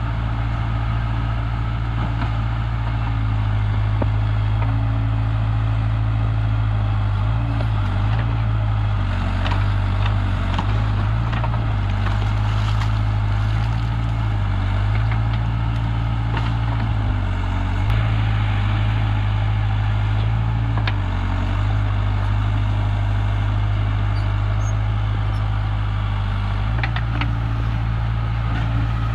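Heavy diesel machinery engine running under load, its revs dipping and picking back up several times in the middle stretch, as one machine tows out another that is stuck.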